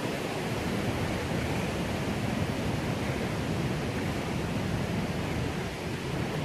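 Steady, even rush of fast-flowing mountain water, with no breaks or changes.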